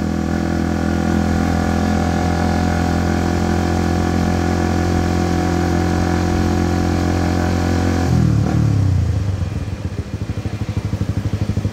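Motorcycle engine running at a steady cruising speed. About eight seconds in the revs fall as the bike slows for a stop, and the engine settles into a low, pulsing beat.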